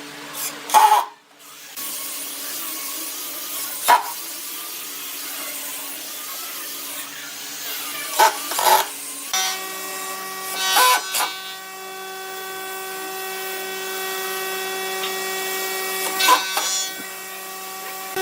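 A power tool's motor runs steadily, its whine getting stronger about halfway through, with several sharp knocks and clatters of wood at irregular moments.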